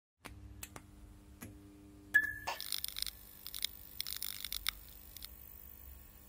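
Production-logo sound effect: a few sharp clicks over a low hum, a loud sudden hit about two seconds in with a short high tone, then several bursts of dense clicking clatter.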